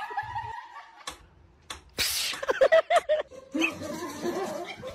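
A person laughing in short bursts, starting about halfway through.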